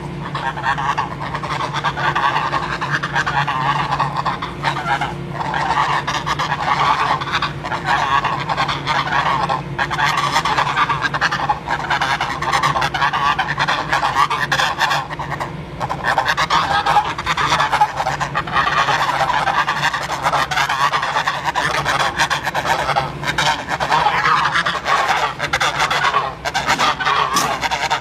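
A flock of geese honking continuously, many calls overlapping with no break.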